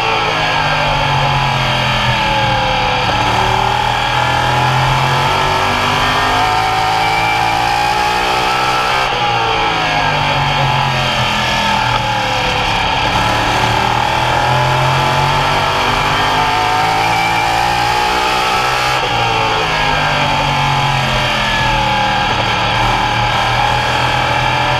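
Several Open Modified race cars' V8 engines running at speed around the oval. Their pitch drops and climbs back again three times, about every nine to ten seconds, with several engine notes overlapping.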